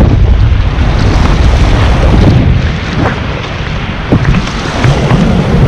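Wind buffeting the microphone over the rush of river water as a raft is paddled forward, with a couple of brief splashes about three and four seconds in.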